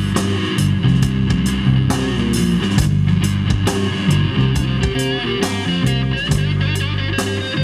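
Instrumental rock trio playing live: an electric guitar lead over held bass-guitar notes and a drum kit with cymbal hits.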